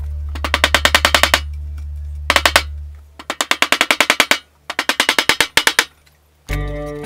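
Small hammer tapping rapidly on the wooden box in four quick bursts, about ten taps a second, wood and metal knocking. Background music plays under the first half and returns near the end.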